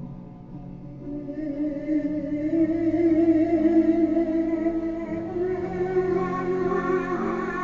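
Music with a singing voice holding long notes with a wavering vibrato, over instrumental backing; it grows louder about two seconds in.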